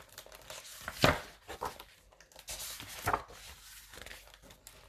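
A picture book being handled as it is opened and its pages turned: a string of soft knocks, taps and paper rustles, sharpest about a second in and again about three seconds in.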